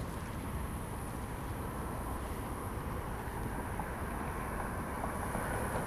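Steady outdoor background noise: a continuous low rumble with a faint high hiss, with no distinct sound standing out.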